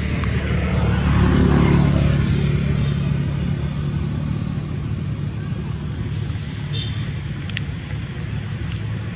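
A motor vehicle engine passing, its low hum swelling about a second in and then easing to a steady rumble. A few short high chirps sound near the end.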